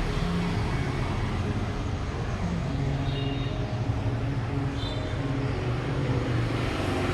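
Steady street traffic noise: a continuous rumble of passing vehicles, with a couple of brief high tones about three and five seconds in.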